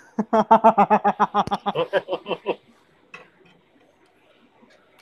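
A man laughing: a rapid run of short 'ha-ha' pulses lasting about two and a half seconds, then dying away.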